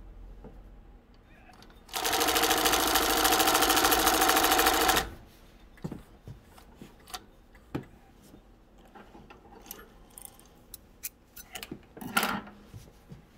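Speedway SW-1341VS, a compound-feed, cylinder-bed industrial sewing machine, sewing fast for about three seconds through a single layer of thin wool fabric, then stopping abruptly. Scattered light clicks follow, with a short rustle near the end as the fabric is taken out of the machine.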